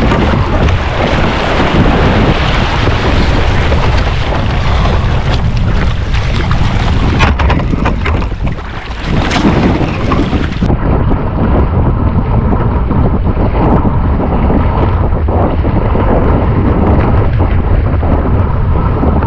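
Wind buffeting the microphone over water rushing and splashing around a sailing canoe under way. The sound turns duller about halfway through.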